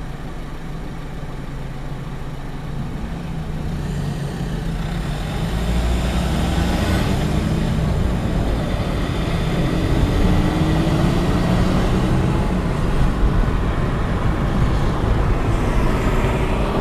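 Road vehicle engine and traffic noise, a steady low rumble that grows louder over the first several seconds and then holds, with engine pitch rising and falling slightly.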